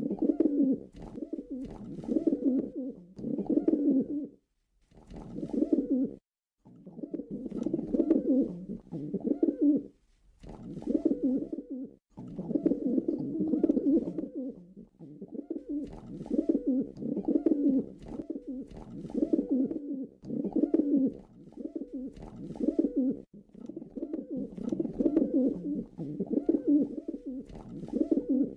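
Pigeon cooing: a run of low, throaty coo phrases, each about one to two seconds long and pulsing within, separated by short pauses.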